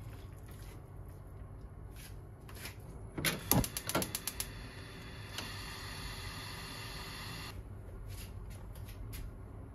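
Gas stove burner being lit: a quick run of igniter clicks about three seconds in, then the burner flame hissing steadily for about three seconds before it cuts off.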